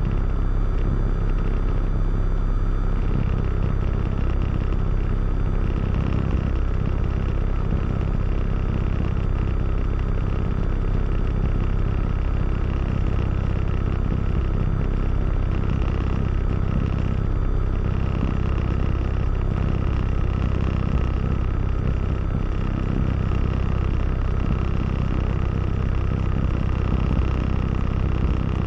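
Diamond DA20-C1's four-cylinder Continental IO-240 engine and propeller running steadily in flight, heard from inside the cockpit as an even drone.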